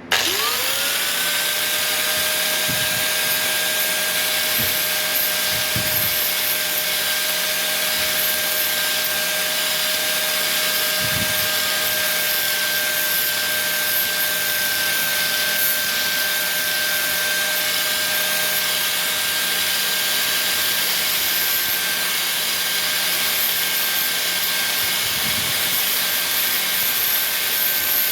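Electric angle grinder with a sanding disc spinning up with a rising whine, then running steadily while it lightly sands fiberglass smooth on a bicycle frame, with a steady hiss of abrasion.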